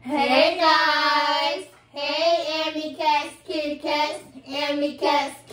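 A high voice singing unaccompanied, holding one long note for about a second and a half and then going on in shorter sung notes.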